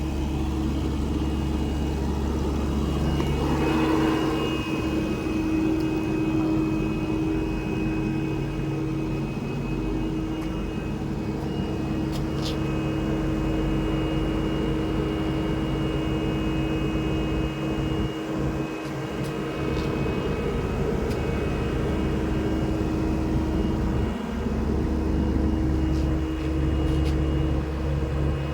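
SANY SY75C PRO excavator's diesel engine running steadily with a whine from the engine and hydraulics while the machine travels down to lower ground, with a few brief clanks partway through.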